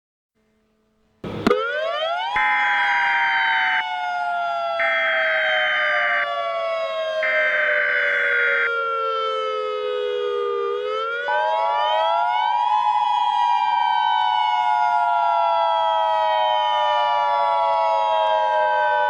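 Civil defense siren starting with a click about a second in, winding up, slowly falling in pitch, rising again and falling once more. Three pulsed higher alarm tones sound over its first part. About eleven seconds in, a steady two-tone EAS-style attention signal joins and holds to the end.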